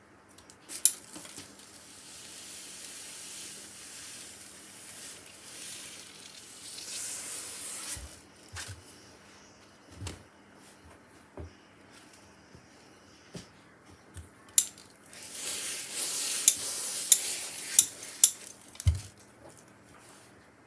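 Steam iron hissing in two long stretches while a seam is pressed, with sharp knocks and clicks in between.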